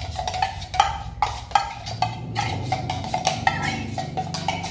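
Background music with light, clicky wood-block-like percussion over a held low tone.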